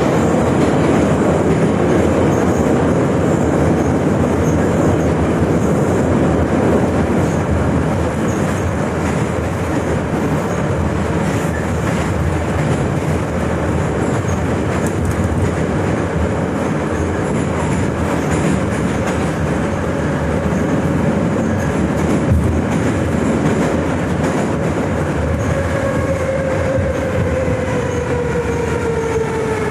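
81-717/714 "Nomernoy" metro train running between stations, heard from inside the car: a steady loud rumble and clatter of wheels on the rails. Over the last few seconds a whine falls in pitch.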